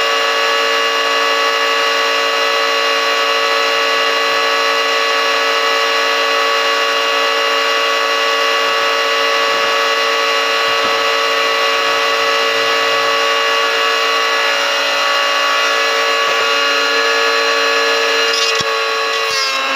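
Electric motor of a small mini wood jointer running at steady speed with a constant high whine; near the end its pitch begins to drop.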